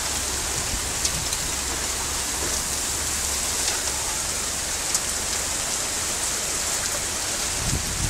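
Heavy downpour: rain pouring steadily in a dense, even hiss, with a few sharper drop hits standing out.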